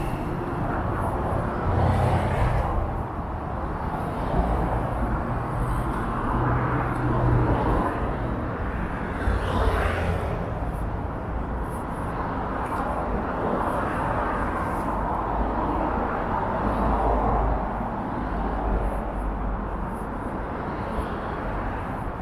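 Road traffic on a busy main road: a continuous rumble of passing vehicles that swells and eases every few seconds as cars go by.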